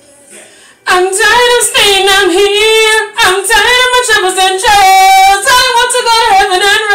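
Faint music, then a woman's loud solo singing voice that comes in about a second in with long held notes, most likely a gospel song.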